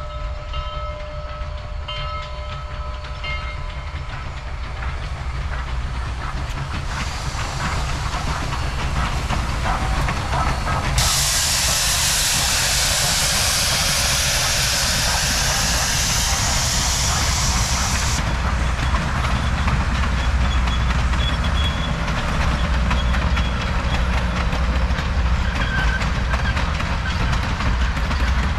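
Southern Railway 2-8-2 steam locomotive No. 4501 approaching and passing with a steady low rumble and a loud hiss of steam midway as it goes by. Its passenger cars then roll past, the wheels clicking over the rail joints.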